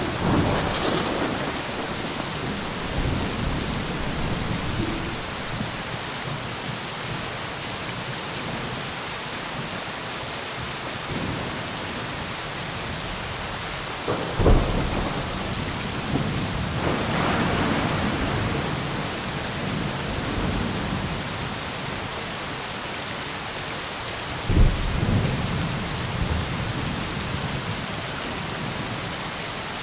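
Steady rain with thunder: a rumble at the start, a sharp crack about halfway through that swells into a rolling rumble a few seconds later, and another sharp crack with rumble near the end.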